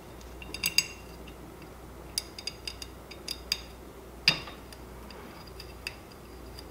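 Irregular light clicks and ticks of a hex key and small screws against the printer's hotend fan assembly as the fan is fitted back on, with one sharper click about four seconds in, over a faint low hum.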